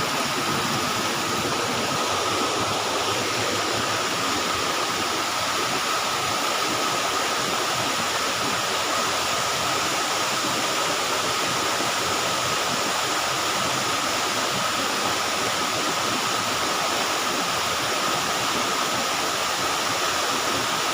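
Waterfall rushing steadily: an even, unbroken hiss of falling water, with a thin steady tone running under it.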